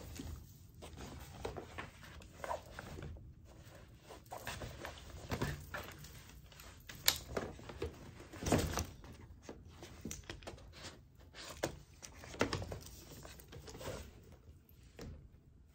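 Folding camping cot being assembled: irregular clicks and knocks as its poles and feet are snapped into place, with rustling of the cot's fabric. The loudest knocks come about seven and eight and a half seconds in.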